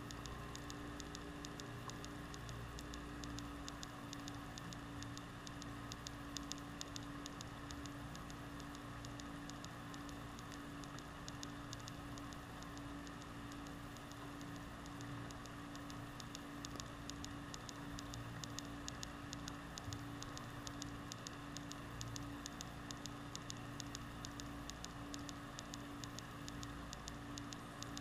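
Underwater ambience picked up by a GoPro in its waterproof housing on the seafloor: a steady hum and hiss with a constant fast crackle of fine clicks.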